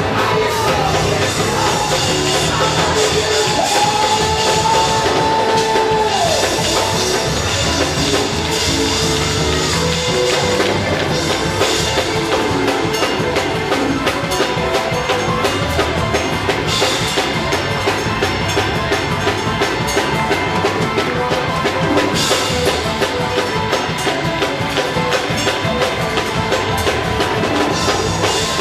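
Live church music with drums, fast steady percussion and sustained organ-like chords, with some singing.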